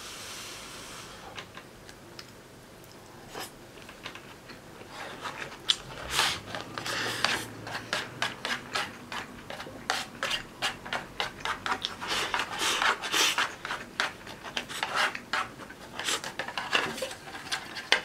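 Disposable wooden chopsticks scraping and clicking against a plastic takeout bento container, shovelling up the last of the rice. The strokes are quick and repeated, starting about five seconds in.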